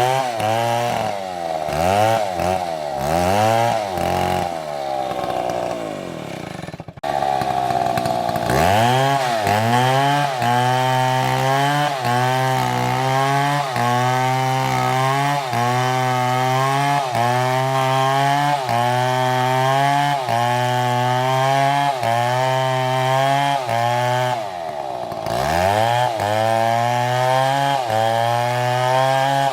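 Large STIHL chainsaw cutting wood at high revs, its engine pitch rising and falling about once a second as the chain bites and frees in the cut. There is an abrupt break about a quarter of the way in, and near the end the engine drops low briefly before revving back up.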